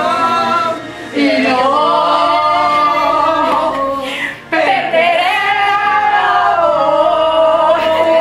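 A song with a woman singing long, held notes over music, pausing briefly about a second in and again just past the middle.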